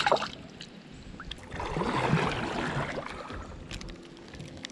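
Water splashing beside a kayak: a short sharp splash right at the start, then a longer swishing wash of water about two seconds in.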